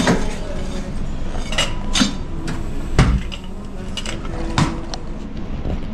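A bartender handling a stainless-steel cocktail shaker tin and bar utensils: a handful of separate metallic clinks and knocks, with a heavier thump about three seconds in.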